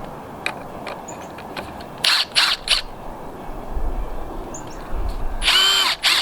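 Cordless impact driver triggered in short bursts: a few quick bursts about two seconds in, then a longer one near the end with the motor's whine bending in pitch, amid light clicks of handling.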